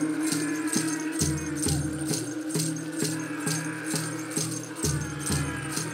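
Background music with a steady shaker beat, about two rattles a second, over a held low note and a shifting bass line.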